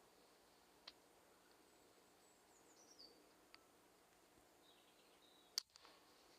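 A single sharp crack about five and a half seconds in: the Air Arms Ultimate Sport .177 PCP air rifle firing at a grey squirrel. Before it, near silence with a couple of small clicks and a few faint high bird chirps.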